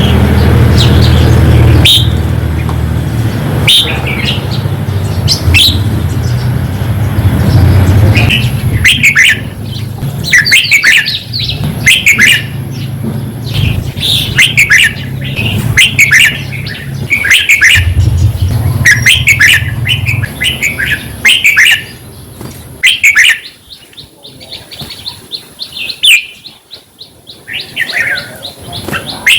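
Red-whiskered bulbul singing: short, bright, warbled phrases repeated every second or so. A low steady hum runs underneath and drops away about 23 seconds in.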